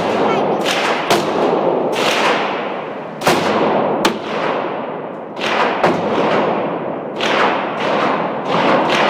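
Gunfire echoing in an indoor shooting range: about ten shots, irregularly spaced, each followed by a long reverberant tail.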